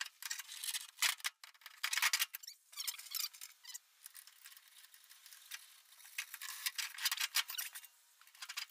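Sped-up, high-pitched clatter of a car seat and its mounting bolts being set onto the car's steel floor pan and fastened: quick runs of clicks, scrapes and squeaks.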